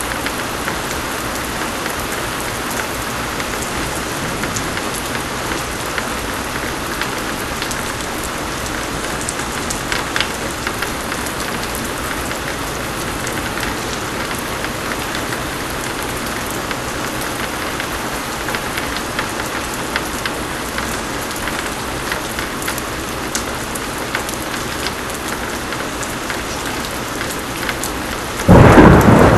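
Thunderstorm: heavy rain pouring steadily as an even hiss, then a sudden loud clap of thunder breaking in near the end.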